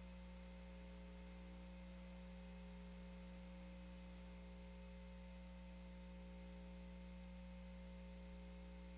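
Near silence: a faint steady electrical hum under a low hiss.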